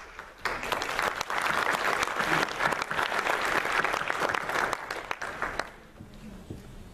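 Church congregation applauding, starting about half a second in and dying away near the end.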